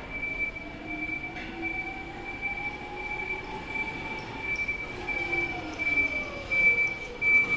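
Nichiyu AC 25 electric forklift driving, its drive motor whining and rising then falling in pitch as it speeds up and slows. A steady high-pitched tone sounds throughout.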